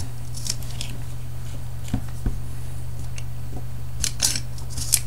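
Light metallic clicks and scrapes of a DP-5A Geiger counter probe's metal beta/gamma shield sleeve being turned and slid on the probe body, a few at a time with more of them near the end, over a steady low hum.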